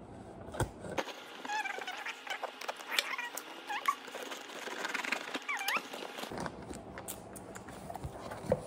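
Knife cutting through packing tape on a cardboard box, then the flaps being handled: scattered clicks and scrapes, with several short, high squeaks in the middle.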